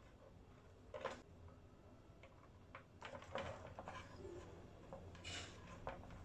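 Faint clicks, taps and rustles of wires and small tools being handled during soldering work, over a low steady hum.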